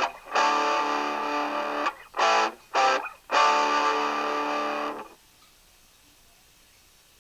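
Distorted electric guitar chord samples triggered from a Maschine Mikro: a long held chord, two short stabs, then another held chord that cuts off about five seconds in, leaving faint hiss.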